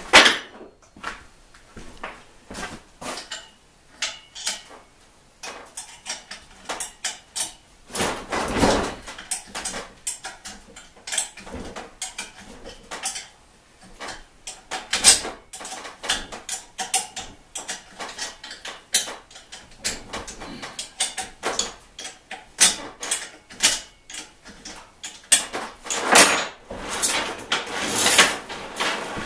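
Metal hand tools clinking and knocking against each other and a trike's crankset as it is being removed: many irregular sharp clicks and clanks, with a couple of longer scraping, rattling spells, one about eight seconds in and one near the end.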